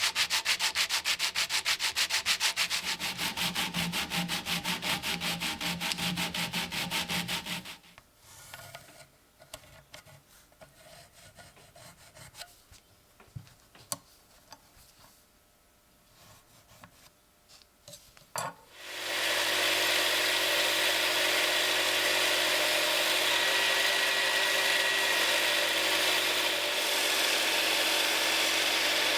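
Rapid, even back-and-forth strokes of hand sanding or rubbing on the piece. They stop about a third of the way in, leaving a quiet stretch of light handling clicks. About two-thirds in, a motorized tool starts and runs steadily with a constant hum.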